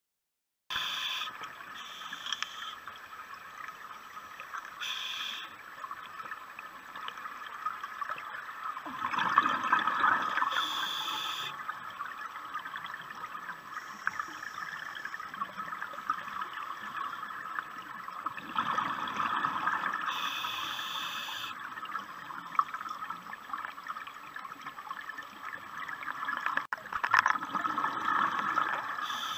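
Scuba diver's breathing through a regulator, heard underwater: bubbly exhalations rush out three times, about nine seconds apart, with short hisses between them over a steady watery background. The sound cuts in suddenly just under a second in.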